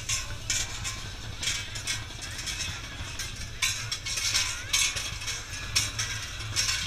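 Large bells worn on a Krampus costume clanging in irregular clashes as the Krampus runs, over a low steady rumble.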